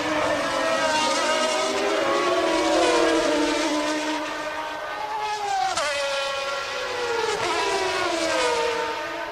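Several 1992 Formula One cars' high-revving engines running together, their pitches rising and falling with throttle and gear changes. There is a sharp drop in pitch about five and a half seconds in, and more falling notes near the end.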